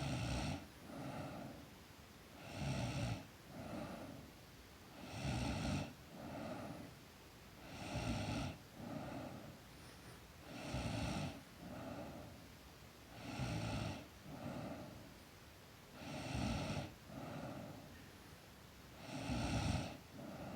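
A sleeping girl snoring in a slow, even rhythm: a loud snore roughly every two and a half to three seconds, each followed about a second later by a softer breath.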